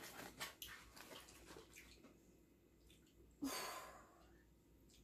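Mostly quiet, with a few faint taps from handling paper food boxes on a table in the first second, and one short breathy noise about three and a half seconds in.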